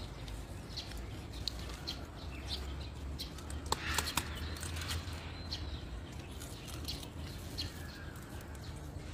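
Park ambience without speech: a low steady rumble with scattered short bird chirps. Light clicks and rustles of plastic food bags and containers being handled at the table, busiest about four seconds in.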